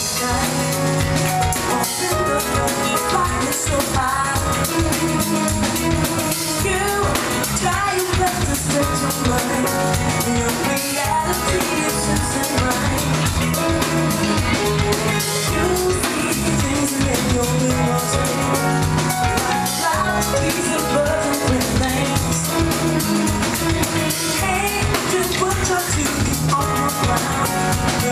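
Live acid-jazz band playing: a female lead vocalist sings over a steady drum-kit groove, electric bass and keyboards.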